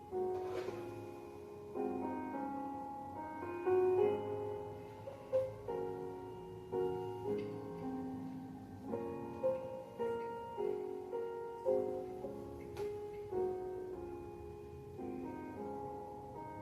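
Instrumental piano music, with gently paced notes ringing on.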